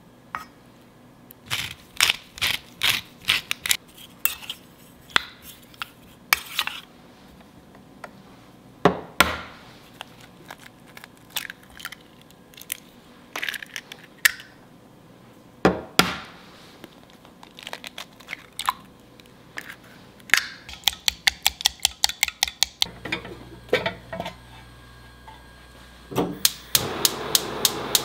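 Kitchen prep sounds: scattered knocks and taps of a spoon on a stainless steel bowl and of eggs being cracked into a glass measuring jug. Later come two fast runs of even clicks, likely the eggs being beaten and a gas stove's igniter. Near the end a steady hiss sets in as a burner lights.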